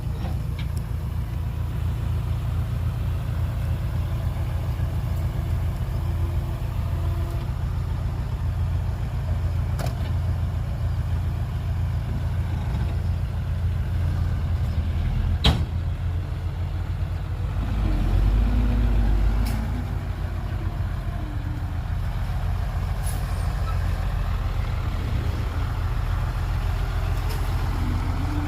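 Heavy diesel engine of earth-moving machinery running steadily with a low, fast-pulsing rumble, with a couple of sharp metallic clanks and a brief rise in engine load about two-thirds of the way through.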